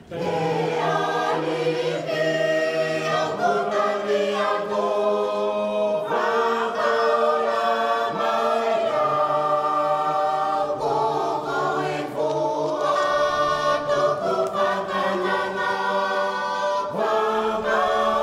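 A choir singing, many voices together in long held notes that change every second or two, with steady low notes underneath.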